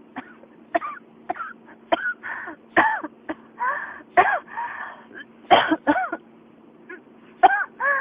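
A person in a coughing fit: many short, voiced coughs in quick clusters, several with a hoarse, rasping tail. The uploader labels it a pneumonia cough.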